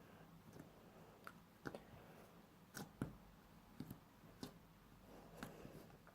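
Faint, irregular clicks and light taps, about a dozen over a few seconds, from hands handling homemade flour-and-shampoo slime at close range.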